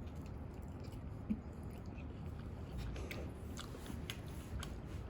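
A person chewing a bite of crispy fried chicken karaage, with a few soft crunches.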